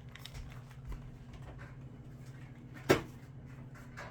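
Kitchen handling sounds: a single sharp knock about three seconds in, over a low steady hum.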